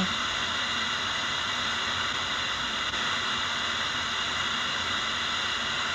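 Steady radio static hiss from the Legenda P-305T radio-cassette recorder's speaker, tuned to where no station is received.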